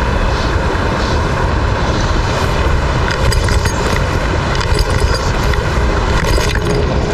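Wind buffeting the microphone: a steady, loud low rumble with a rushing hiss over it.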